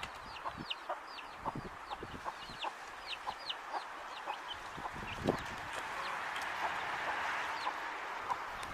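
Chicks peeping: many short high chirps, each falling in pitch, several a second, mixed with lower short clucking notes and a few soft knocks.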